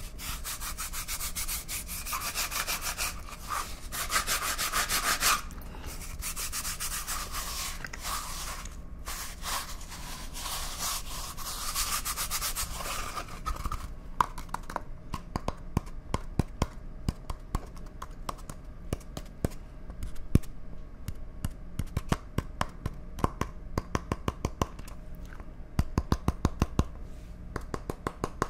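Cardboard toilet-paper tube rubbed and scratched between the fingers close to the microphones, a dense scratchy rustle. About halfway through it gives way to quick, light taps in irregular runs, bunched more tightly near the end.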